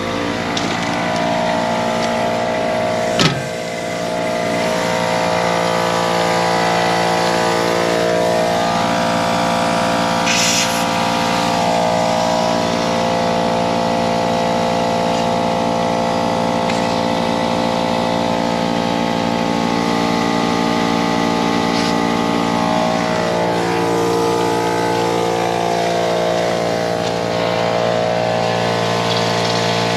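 Air compressor running steadily, a little bit noisy, while pushing air through an RV's fresh water lines to blow them out for winter. Its hum sags and recovers twice. A sharp click comes about three seconds in, and short hisses come about ten seconds in and near the end.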